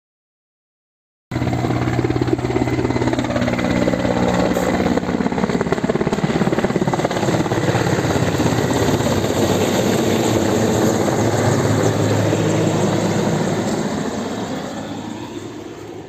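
Large firefighting helicopter with a water bucket slung beneath, flying low overhead: loud rotor and engine noise that starts abruptly about a second in, holds steady with a rapid pulsing from the blades, then fades away over the last few seconds.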